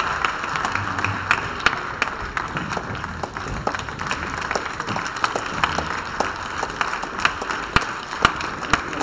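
An audience applauding steadily, many hands clapping at once.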